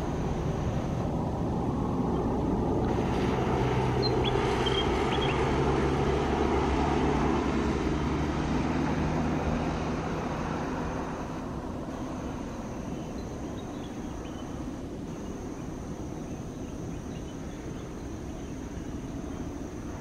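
Jet airliner's engines running on final approach to landing: a steady rumble with a low hum that grows louder, then fades after about ten seconds as the aircraft reaches the runway.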